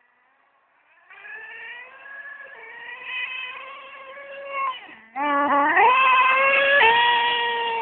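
Traxxas Slayer 3.3 RC truck's nitro two-stroke engine at high revs, a high whine. It sets in about a second in, drops low briefly past the middle, then climbs back up and holds at its loudest.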